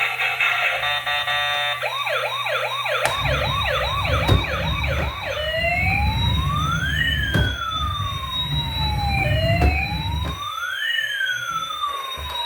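Electronic emergency-vehicle siren: a few seconds of fast yelp warble, then a slow wail that rises and falls twice, over a low rumble. It opens with a couple of seconds of steady, music-like tones.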